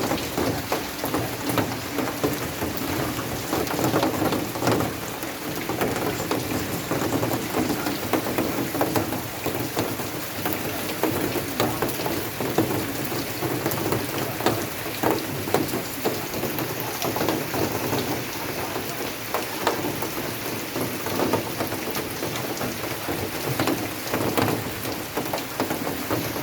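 Steady heavy rainfall, a dense hiss of rain with many sharp individual drop strikes ticking through it.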